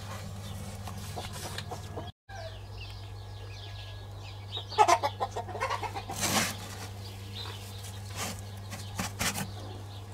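Hens clucking in short irregular bursts, thickest around the middle and again near the end, over a steady low hum.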